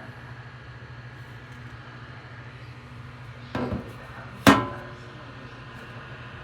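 Battery neck fan running with a steady low hum and faint whir. Two knocks about a second apart stand out partway through, the second sharper and louder, with a brief ring.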